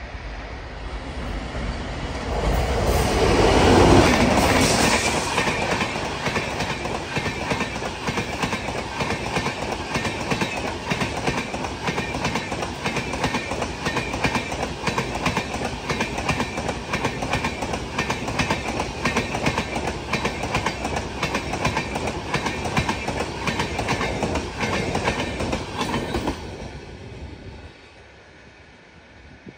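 Electric-hauled Tejas Rajdhani express passing close by at speed. The rush builds to its loudest as the locomotive goes by about 4 seconds in, followed by the rapid clickety-clack of coach wheels over rail joints for some twenty seconds. The sound drops away sharply near the end as the last coach passes.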